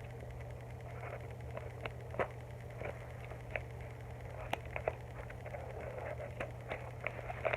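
A paper-and-tape squishy being handled: scattered small clicks and crinkles at irregular intervals over a steady low hum.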